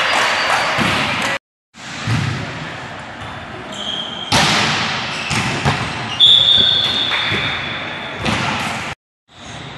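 Volleyball play in a large echoing gymnasium: the ball struck sharply several times, each hit ringing on in the hall. A high-pitched tone is held for about two seconds from about six seconds in, and the sound cuts out briefly twice.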